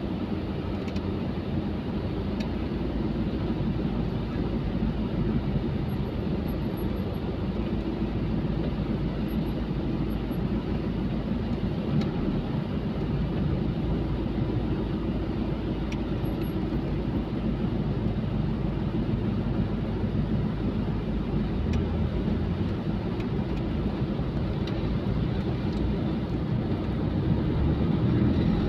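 Road traffic: a steady rumble of engines and tyres in slow, busy city traffic, growing a little louder near the end.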